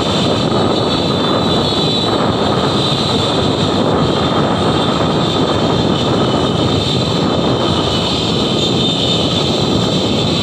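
Steady rush of wind and traffic noise from a moving vehicle riding behind a pack of motorcycles and scooters.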